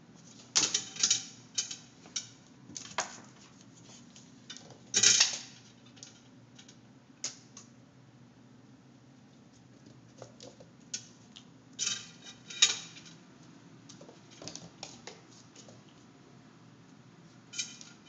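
A kitten's toy clattering with a light metallic ring in irregular bursts of clicks as it is batted about. The loudest bursts come about five seconds in and again around twelve seconds.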